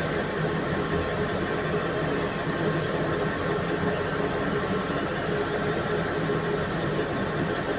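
Diesel engine of heavy mining equipment running steadily, with no revving or impacts.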